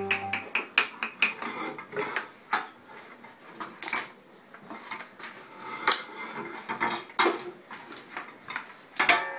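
Kitchen clatter: irregular clinks and knocks of a pan, a glass jar and utensils being handled on a gas hob.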